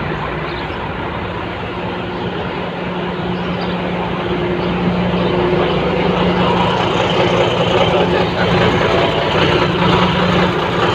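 Komatsu bulldozer's diesel engine running steadily with a constant low hum, growing a little louder about halfway through.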